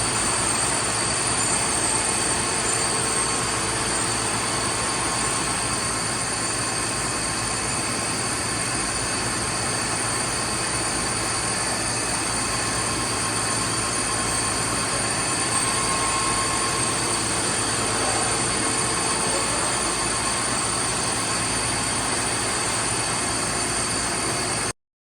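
StankoImport CNC horizontal boring mill running: a steady mechanical hum and hiss with constant high-pitched whines, with fainter tones that come and go. It cuts off abruptly near the end.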